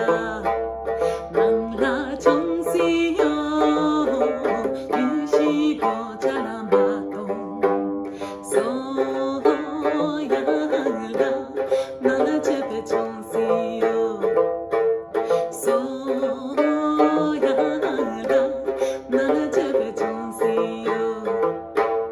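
Tibetan dranyen (long-necked plucked lute) playing an ornamented central Tibetan folk tune in a steady down-up strumming rhythm, with a woman singing the words along with it. The playing stops just before the end.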